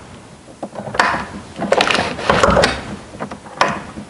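A wooden door being handled and opened: a sharp knock about a second in, a run of rattling knocks around two seconds in, and another knock near the end.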